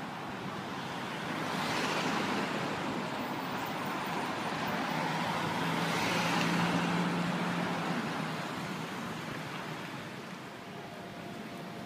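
City street traffic: a steady wash of road noise, with two vehicles passing, about two seconds in and again around six to seven seconds in, the second with a low engine hum.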